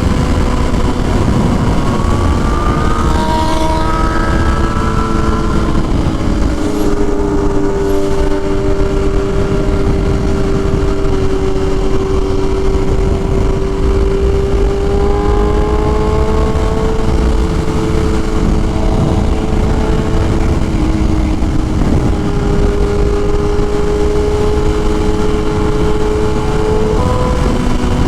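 BMW S1000RR inline-four motorcycle engine running under way at fairly steady revs, with a few short rises in pitch as the revs climb, over a heavy rumble of wind on the microphone.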